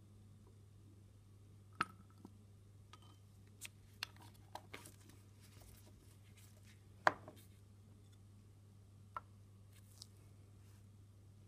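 Small glass reagent bottles and test tubes being handled on a lab bench: scattered light clicks and taps of glass, the loudest about seven seconds in, over a steady low hum.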